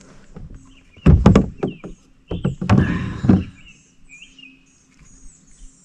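Small birds chirping again and again, broken by two loud bursts of knocking and rustling, about a second and about two and a half seconds in.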